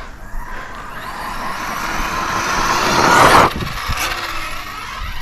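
Arrma Kraton 6S RC truck's brushless motor (Hobbystar 1730 KV on a Castle Mamba Monster X ESC) whining up in pitch under full throttle with tyre noise over a couple of seconds, then cutting off sharply about three and a half seconds in as the throttle is let off.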